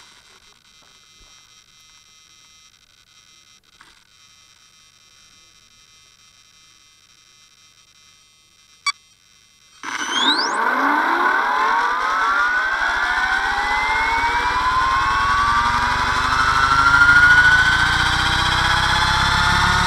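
Compass 6HV electric RC helicopter spooling up: the motor and gear whine starts about halfway through and rises steadily in pitch as the main rotor comes up to speed, levelling off near the end. Before that there are only faint steady high tones and a sharp click.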